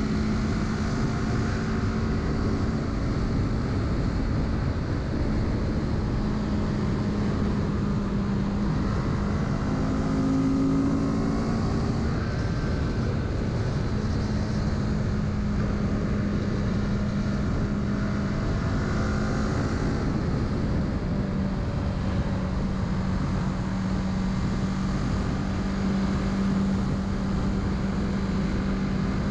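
Kawasaki Z650's parallel-twin engine running steadily under way, with wind and road rumble beneath it. The engine note briefly shifts higher about ten seconds in.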